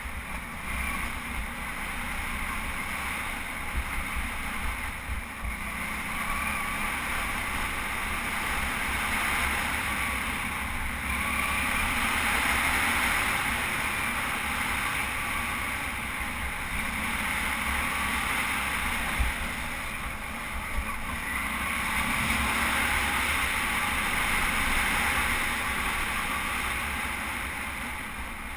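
Wind rushing over a helmet-mounted camera's microphone while a Suzuki V-Strom 650 motorcycle is ridden along a trail. The rush swells and eases a few times, with a gusty low rumble underneath.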